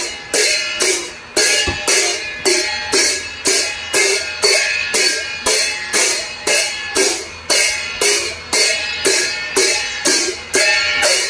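A pair of small brass hand cymbals (jhyamta) clashed together in a steady dance beat, about two strikes a second, each stroke ringing on into the next.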